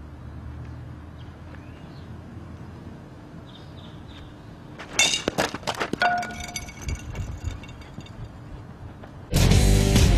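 A sudden loud crash of breaking and clinking, with ringing tones trailing off, about halfway through. Loud heavy rock music with drums and guitar cuts in near the end.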